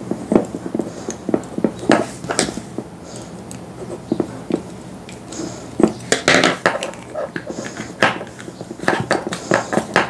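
Hard plastic and brass parts of a bulb holder being handled and fitted together by hand: irregular small clicks, taps and rubbing.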